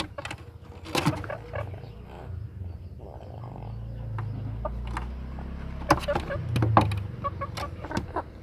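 Knocks and rustling from a rooster being handled as it is fed a ball of warm rice. A low rumble comes in the middle and again near the end.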